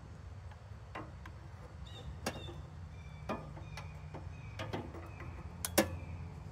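Handheld electronic refrigerant leak detector ticking slowly and irregularly, with a few faint short beeps, as its probe is passed over the condenser's pipes; the slow ticking means it is picking up no refrigerant. A steady low hum runs underneath.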